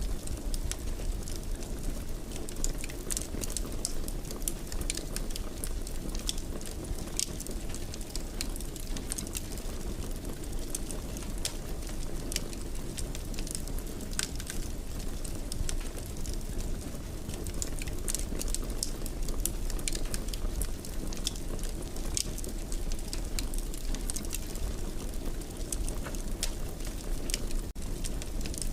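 Wood fire crackling in a fireplace: a steady low rumble of burning with frequent sharp pops and snaps, broken by a brief dropout near the end.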